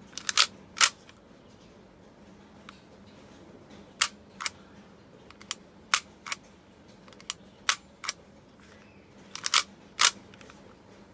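Tokyo Marui USP Compact airsoft pistol being worked by hand: sharp mechanical clicks from the slide being racked, the hammer cocking and decocking, and the safety/decock lever being flipped. The clicks come in pairs and triples a couple of seconds apart, with one quick cluster near the end.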